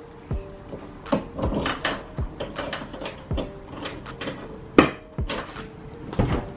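Rear hatch of a Fox-body Mustang being unlocked and opened, with keys rattling and the lock and latch clicking. One sharp knock comes about five seconds in.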